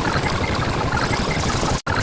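Dense, steady wash of noise from many sound effects layered on top of one another, dropping out for an instant near the end.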